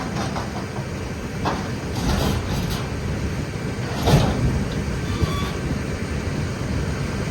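Wind buffeting the microphone: a steady low rumble with a stronger gust about four seconds in.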